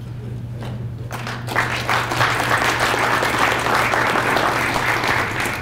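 Audience applauding: the clapping starts about a second in, grows, and carries on steadily.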